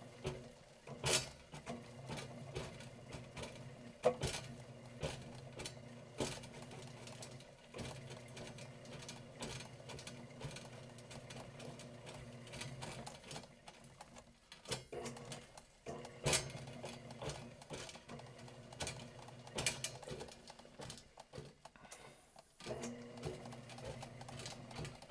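Electric drum-type power drain auger running: a steady motor hum with the spinning cable rattling and clanking as it is hand-fed off the drum into the drain line. The sound drops away briefly twice, around the middle and near the end.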